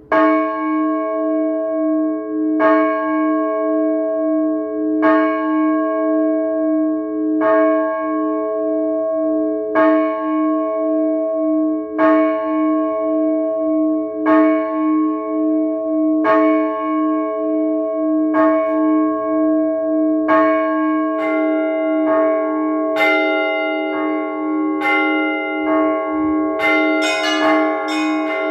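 Orthodox church bells rung by hand. A single large bell is struck slowly, about once every two and a half seconds, and its hum beats steadily between strokes, as in the slow one-bell call to service. About three-quarters of the way through, smaller, higher bells join and the strokes come quicker, building toward a full peal.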